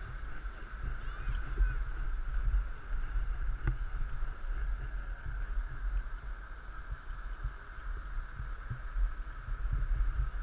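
Wind buffeting the microphone of a pole-held camera outdoors: an uneven low rumble throughout, with a steady hiss above it and one faint click about four seconds in.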